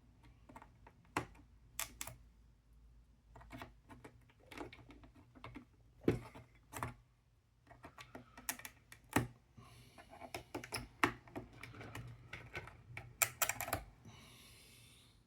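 Irregular small clicks and taps from handling the parts of a puzzle box and prodding inside it with a tool, with a brief scraping rub near the end.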